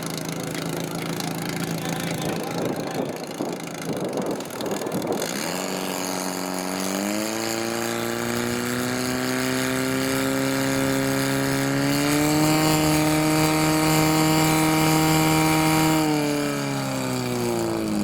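Portable fire pump's engine running hard under load, pumping water to the hoses. It revs up about six seconds in, climbs higher again about two-thirds of the way through, and is throttled back with a falling pitch near the end.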